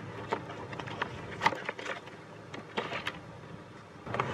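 Handling of a cardboard box and a hard plastic carrying case: scattered light knocks, clicks and rustles as the case is slid out of the box and set down on a table.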